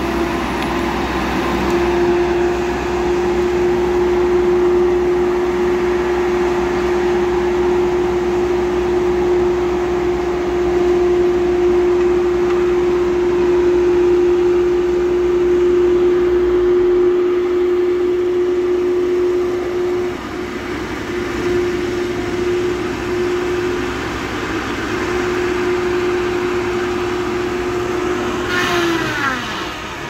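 Rubber-tired feller buncher running with a steady high whine over its diesel rumble, the rumble falling off about halfway through. Near the end the whine drops sharply in pitch as the saw head cuts into a pine trunk.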